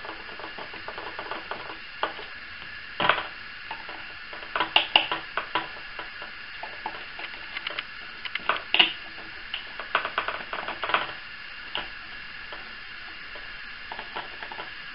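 Small screwdriver turning out the tiny screws in a Syma X8C quadcopter's plastic arms and body: scattered light clicks and ticks at an irregular pace, a few sharper ones about three, five and nine seconds in.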